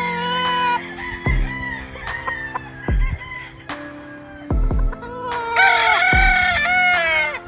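Rooster crowing over background music with a deep, slow, steady beat; the longest crow comes near the end, rising, holding and then falling away.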